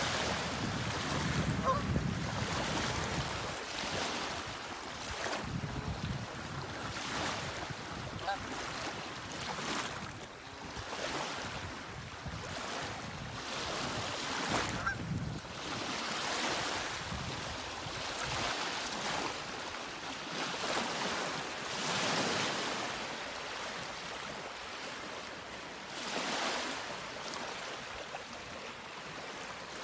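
Outdoor wind-and-water ambience: a steady rushing hiss that swells and fades every second or two, with some low rumble in the first few seconds and a few faint, short bird calls.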